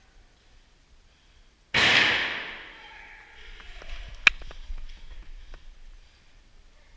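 A sudden loud bang that trails off in a hiss over about a second, followed by a scatter of sharp clicks and taps, with one loud crack about halfway through.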